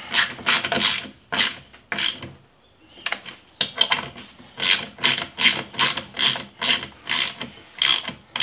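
Hand ratchet wrench clicking in quick repeated short strokes, about three a second, as a bolt is tightened, with a pause of about a second partway through.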